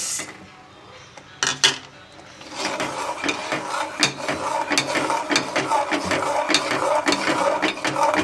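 A spoon stirring and scraping around a pan of firni, thickened milk and rice, after the sugar goes in. The scraping and clinking come quick and continuous from about two and a half seconds in, after a single clank about a second and a half in.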